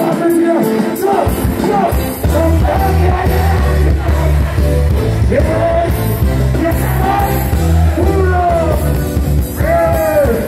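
Live reggae band playing loudly with a voice singing over it; the heavy bass line comes in about a second in.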